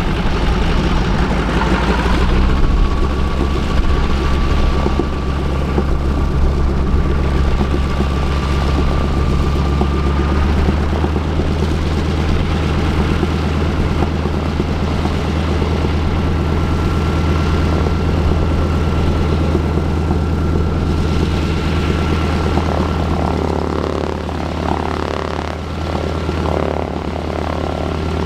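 North American T-6 Texan (Harvard) Pratt & Whitney R-1340 Wasp nine-cylinder radial engine running steadily on the ground. A thin, steady high whine rides above it and steps up in pitch about ten seconds in.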